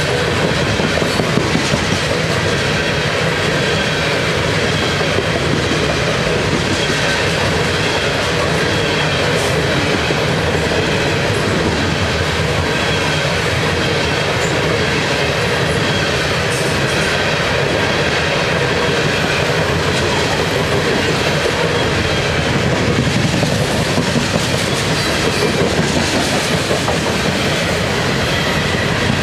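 Loaded-train string of CSX coal hopper cars rolling past steadily, the wheels clicking over the rail joints.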